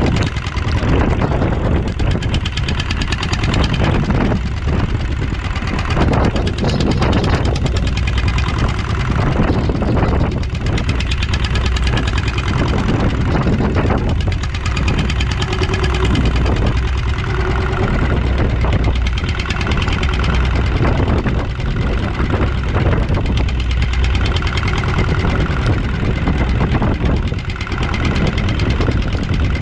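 A small boat's engine running steadily under a wash of wind, rain and water noise that swells and drops every second or two.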